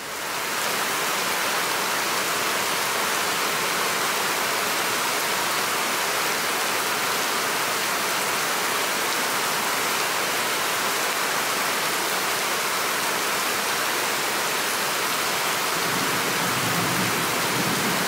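Heavy rain pouring down steadily, fading in at the start.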